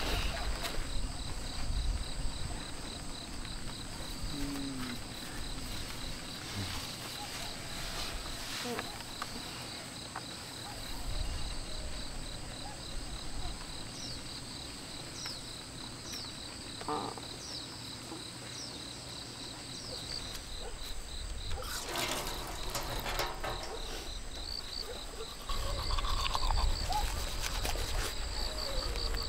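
Insects trilling steadily in a high, pulsing tone, with a few short bird chirps in the middle. A louder low rumble comes in near the end.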